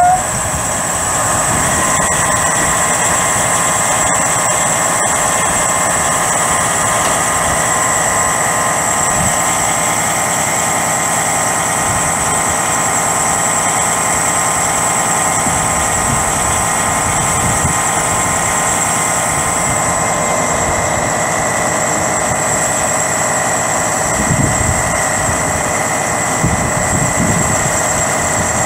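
Western Star 4900SA truck's diesel engine running steadily to drive the crane hydraulics, with a steady high whine from the hydraulic system as the Hiab 1055E HiPro articulated crane unfolds and raises its boom.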